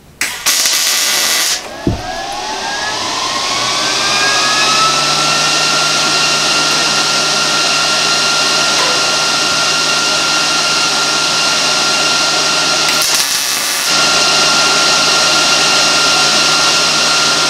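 An electric motor spinning up with a rising whine over the first few seconds, then running at a steady pitch with a loud, even rush of noise. It dips briefly and picks up again a little past the middle.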